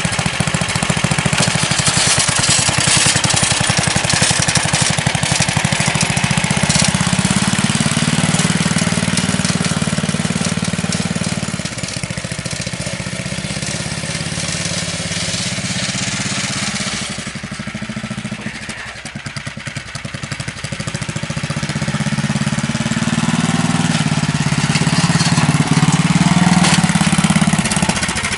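Small riding-lawn-mower engine running hard as the chain-driven cart is driven, its pitch and level easing off about midway and building again near the end. A harsh high-pitched grinding rides over it from the chain drive, which the builder traces to a pulley rubbing.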